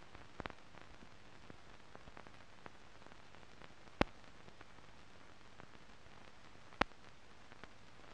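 Steady hiss with scattered faint clicks and two sharper clicks, about four seconds in and again near seven seconds: the empty noise of a silent film transfer with no sound track.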